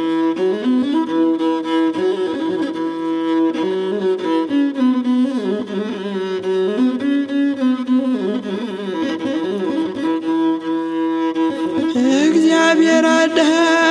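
Instrumental interlude of an Ethiopian Orthodox hymn: a winding melody played over a held drone note. Near the end a male voice begins singing the next verse.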